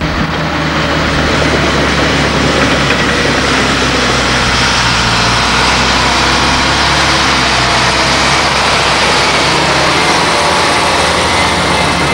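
Diesel engine of a Volvo BM A25B articulated dump truck running steadily as the truck drives slowly past close by.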